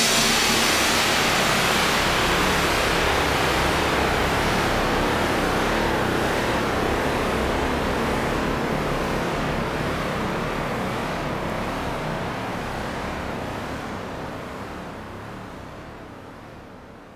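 A steady rushing noise with a low rumble underneath, fading gradually over the last several seconds until it has nearly died away.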